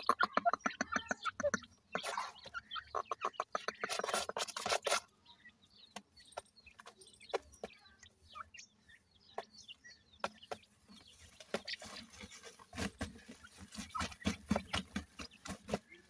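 Grey francolin hens giving rapid short clucks while their chicks peep. The clucking comes thick in the first five seconds, thins to scattered high peeps, then picks up again near the end.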